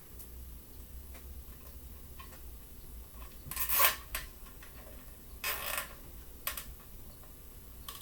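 Plastic zip ties being pulled tight around a cable: two short zipping rasps of the ratchet teeth, about two seconds apart, amid faint ticks and a click.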